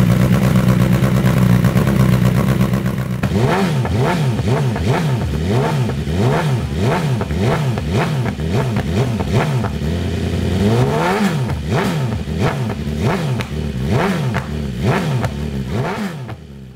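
2020 BMW S1000RR's inline-four engine through an Austin Racing GP1R black ceramic full-system exhaust. It runs at a steady note for about three seconds, then is revved in quick repeated blips, each rising and falling in pitch, with one longer rev near the middle.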